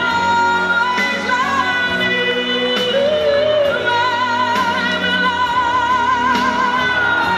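A song with a singer holding long notes with vibrato over sustained chords and a light, regular beat.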